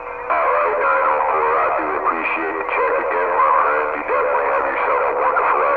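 CB radio receiver audio: a narrow, tinny transmission of wavering pitched sound over a hiss of static, with no clear words.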